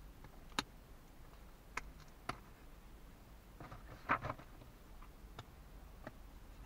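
Thin plywood model-kit sheets being handled: scattered light clicks and taps as the wooden sheets and parts knock together, with a short flurry of clicks and rustling about four seconds in as the sheets are laid down.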